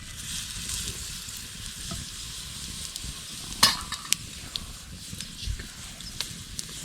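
Flatbread frying in a pan over a campfire: a steady high sizzle with scattered small ticks, and one sharp click about halfway through.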